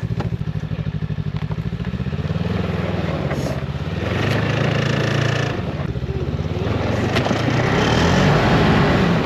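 Snowmobile engine running with a steady pulsing idle, revving up twice, about four seconds in and again near the end, as it pulls a buggy stuck in deep snow on a tow strap.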